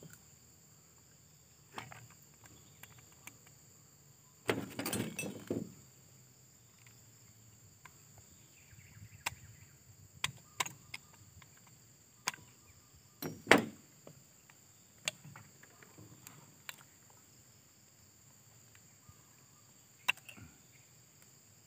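Scattered clicks, clinks and rattles of hand tools and metal and plastic parts as a chainsaw is taken apart by hand, with a denser rattling clatter about five seconds in and a sharp knock about thirteen seconds in.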